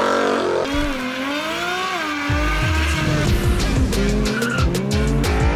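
Drag-car engines revving up and down, with tyre squeal from burnouts; heavy low thumps start about two seconds in, and sharp cracks come in near the end.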